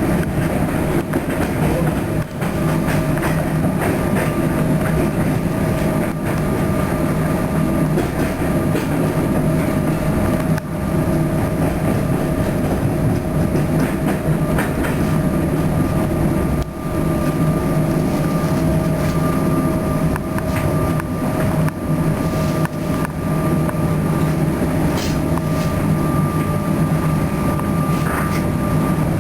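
Melbourne suburban electric train running steadily: a loud, continuous rumble with a steady hum and a few scattered clicks.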